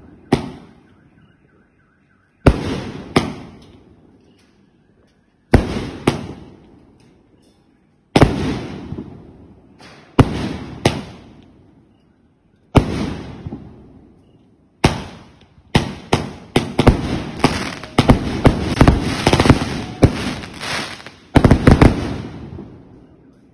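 A 2-inch, 49-shot fireworks cake firing its final shots: sharp bangs, each trailing off over a second or two. They come singly or in pairs every couple of seconds, then quicken into a rapid volley over the last third, with a final cluster near the end as the cake finishes.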